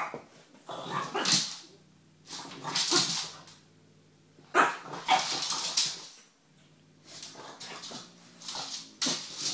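French bulldog barking and whining up at a cat in four bursts of about a second each, the sharpest starting about halfway through.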